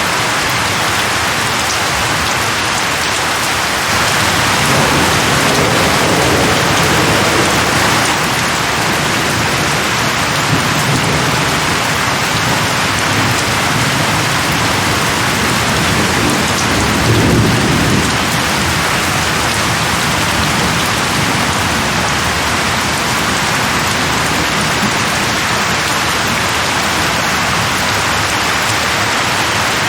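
Steady heavy rain falling, with low rolls of thunder: a long one from about four seconds in and a shorter, stronger one about halfway through.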